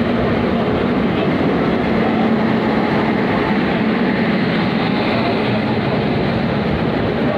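Electric trains running side by side at speed, heard from the open doorway of a suburban local: a steady rumble of wheels on rail and rushing air, with a steady low hum under it, as an electric locomotive hauling an express passes on the next track.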